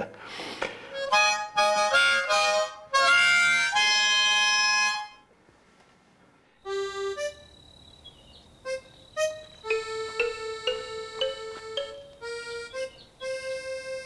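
A harmonica played in a quick run of chords for about five seconds, which cuts off abruptly. After a second and a half of near silence, light instrumental music starts, with one held note and short melodic notes over it.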